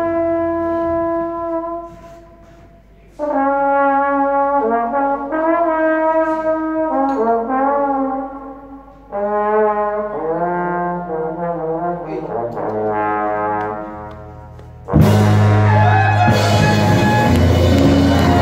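Horn section of saxophone, trombone and trumpets playing held notes together in harmony, in phrases with two short breaks. About fifteen seconds in, the full band with drums and bass comes in loudly under them.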